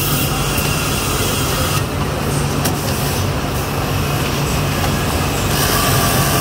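Steady running noise of a TEMS TM-3500 automatic welt pocket sewing machine: a constant low hum under a dense, fast mechanical rattle.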